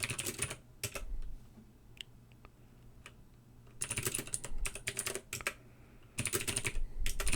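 Computer keyboard typing in quick runs of keystrokes with pauses between them: a short run at the start, then two longer runs in the second half, as commands are typed into a network switch's command line.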